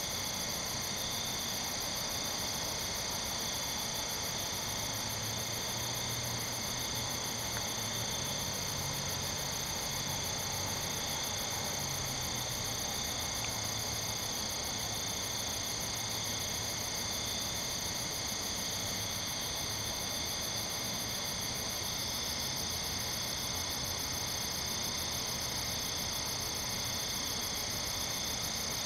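Steady night chorus of crickets and katydids: several overlapping high, continuous trills, one of them pulsing rapidly and evenly.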